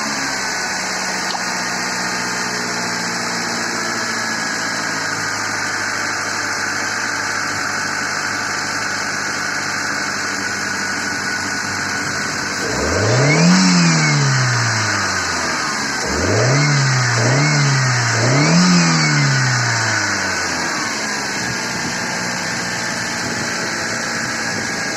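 GAZ-3110 Volga's ZMZ-406 fuel-injected four-cylinder engine idling, revved up once about halfway through and then three quick times in a row, dropping back to idle each time. A whistle runs over the engine and rises and falls with the revs.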